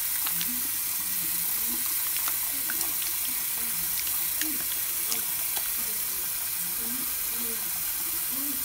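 Tap water running steadily into a sink while wet, soapy hands rub body wash into a lather, with small wet clicks and squishes.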